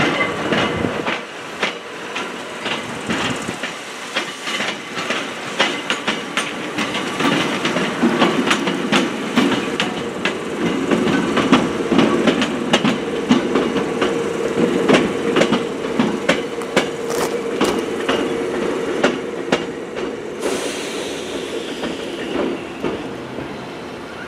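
Former Tokyu 7200-series two-car electric train (cars 7204+7305) rolling slowly through the station tracks, its wheels clicking irregularly over rail joints, with a steady hum underneath.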